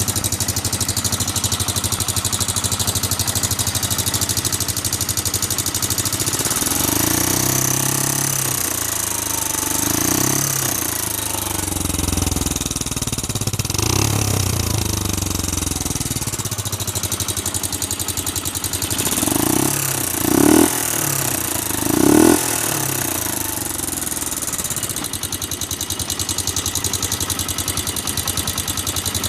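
Vehicle engine running at idle and revved several times: a few slower rises and falls in pitch in the middle, then three quick throttle blips about two-thirds of the way through. The owner presents it as a suspicious noise from the engine.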